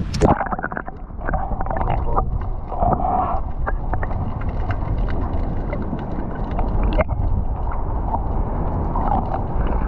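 Storm wind rumbling on the microphone, with a sharp knock right at the start and scattered small clicks and taps.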